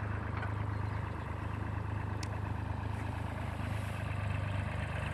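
Tractor diesel engine running steadily with an even low hum.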